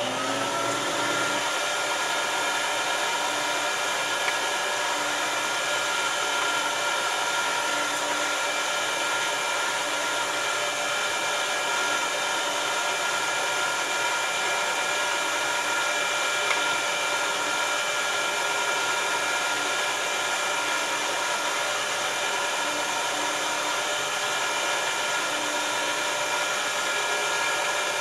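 Electric meat grinder motor, fitted with a sausage stuffing tube, switched on right at the start and spinning up, then running steadily with an even whine as meat is pushed through into the casing.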